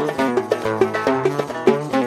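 Oud playing a quick run of plucked notes over a light percussion beat, as an instrumental break between sung verses.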